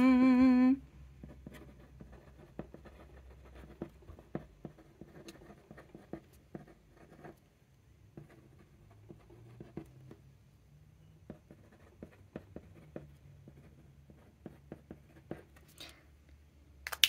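A fountain pen nib writing on thin paper: faint, irregular scratching of the strokes. It opens with a short hummed note and ends with a couple of light knocks as pens are set down.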